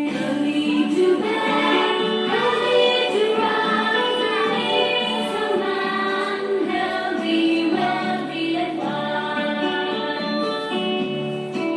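Children's nursery-rhyme song: voices singing over a cheerful instrumental backing.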